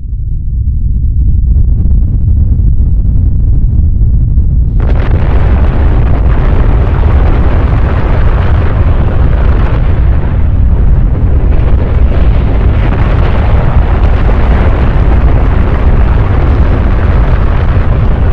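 Volcanic eruption sound effect: a loud, deep, continuous rumble that swells in at the start. About five seconds in, a harsher hissing layer joins it and carries on with the rumble.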